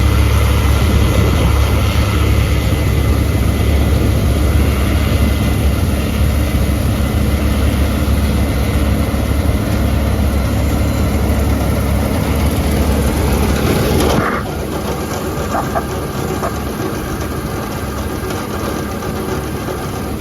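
Combine harvester running under load in canola: a steady engine drone with a heavy low hum and a wash of machine noise. About 14 seconds in the sound drops abruptly to a somewhat quieter level.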